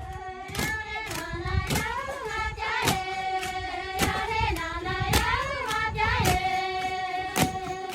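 Music with a singing voice holding long notes over a steady beat of sharp claps or percussion hits, about two a second.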